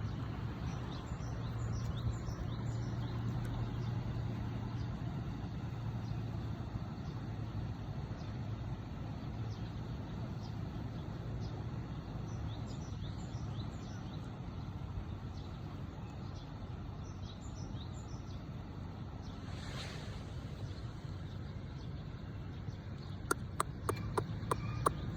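Outdoor ambience: a steady low rumble with faint bird chirps now and then, a short whoosh about twenty seconds in, and a quick run of sharp clicks near the end.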